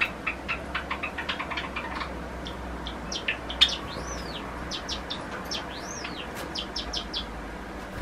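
Male Java sparrow singing: a quick run of clicking notes, then higher, sharper notes with two long whistles that rise and fall, the song stopping about seven seconds in.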